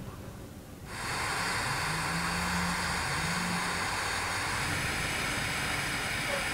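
Handheld gas torch burning with a steady hiss, its flame playing on a brass lure; the hiss comes in abruptly about a second in.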